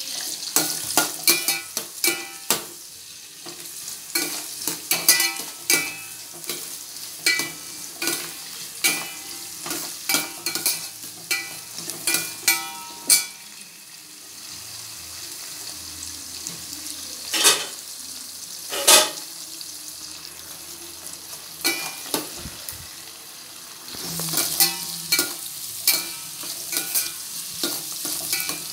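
Chopped shallots sizzling as they fry in oil in a stainless steel pot, with a metal spoon stirring and clinking against the pot in quick, irregular strokes. The stirring mostly stops for several seconds in the middle, with two single knocks, then picks up again near the end.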